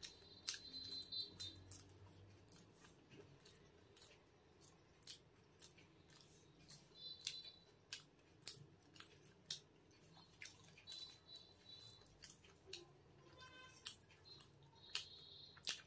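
Close-miked eating sounds of a person chewing egg curry and paratha: wet mouth clicks and lip smacks coming as a run of sharp, irregular clicks.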